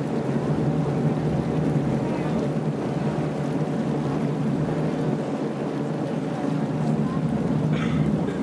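Engine of a small passenger ferry boat running steadily while under way, a low even drone.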